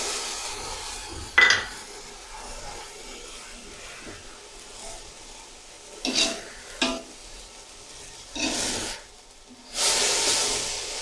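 Vegetables sizzling in an aluminium pot as chicken stock is poured in, the sizzle dying down over the first seconds; then a metal spoon stirring and scraping against the pot in several separate strokes.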